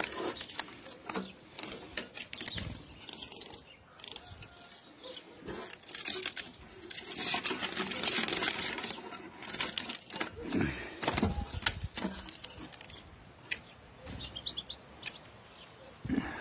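Rustling and clattering as European goldfinches are let out of a metal cage, with wings fluttering and a few short, faint high chirps near the end.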